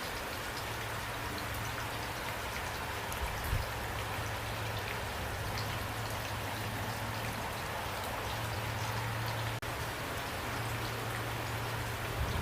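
Steady rain falling, with individual drops landing close by as short ticks over the even hiss of the downpour. A low hum comes and goes underneath, and a dull thump sounds about three and a half seconds in.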